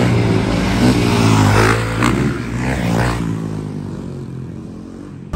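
A vehicle engine revving hard as it passes close by, with rising pitch sweeps in the first three seconds. It then fades steadily away.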